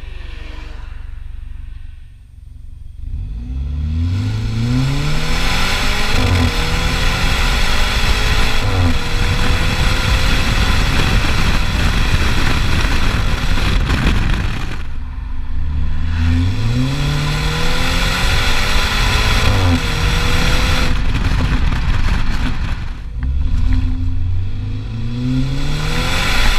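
BMW 125i's turbocharged four-cylinder engine and exhaust under hard acceleration, three times: the pitch climbs through the revs, drops back at each upshift of the automatic gearbox and climbs again. Between runs the throttle closes and the engine note falls away, with short crackles from the exhaust.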